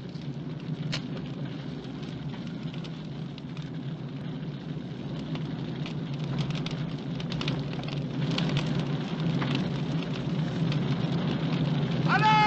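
Fire crackling: a steady rushing noise dotted with scattered pops and crackles, growing gradually louder.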